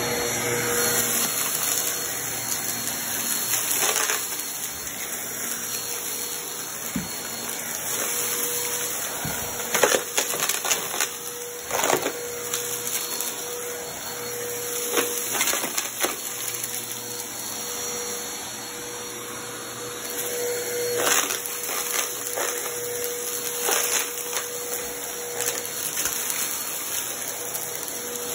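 Upright vacuum cleaner running steadily on carpet with a constant motor whine, sucking up scattered hard crumbs and debris that clatter and rattle up through the nozzle in sharp bursts, the loudest a little after the first third.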